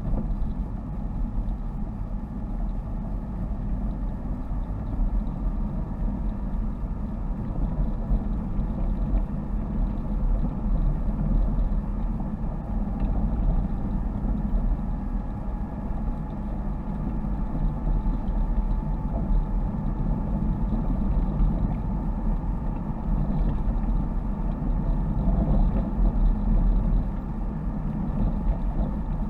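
Car interior noise while driving: a steady engine drone with tyre and road rumble, heard inside the cabin.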